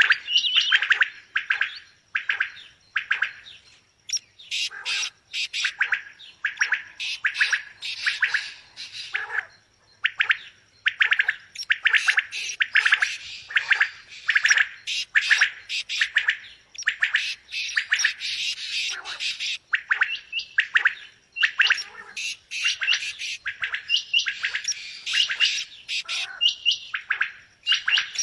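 Quail calling over and over in short, sharp notes, spaced out for the first few seconds and then coming thick and fast.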